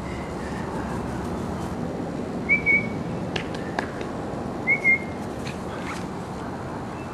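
Two short, high whistled chirps about two seconds apart, each a quick double note, over a steady outdoor background hiss with a few faint clicks.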